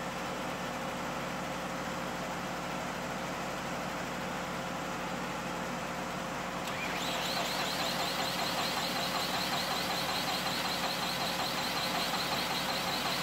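Steady hum, then about seven seconds in the diesel generator set's starter motor engages with a rising whine and cranks the engine at a steady pulsing rate, turning it over without it firing. The engine fails to start because its fuel cut solenoid is getting no 12 volts.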